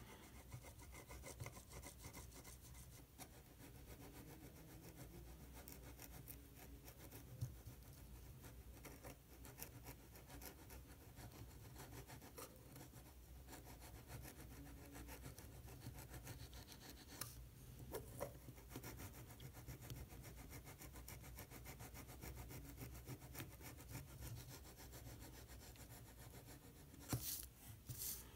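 Faint scraping and rubbing of a knife tip against wax paper and dried silicone sealant as the cured rings are pried loose, with small ticks throughout and a short louder scrape near the end.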